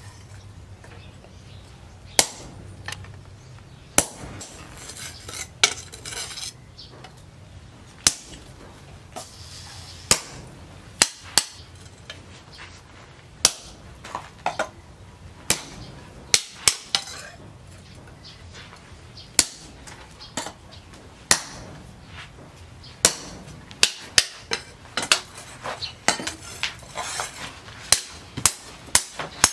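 Hand hammer striking a red-hot leaf-spring steel machete blade on a steel post anvil. The sharp, ringing metal blows come a few seconds apart at first, then faster, about two a second, in the last few seconds.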